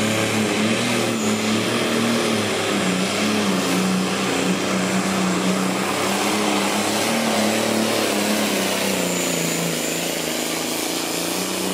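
Limited pro stock John Deere pulling tractor's turbocharged diesel engine running flat out under full load as it drags the sled, a steady drone with a thin turbo whine high above it. The engine pitch sags a little late in the pull, then picks back up near the end.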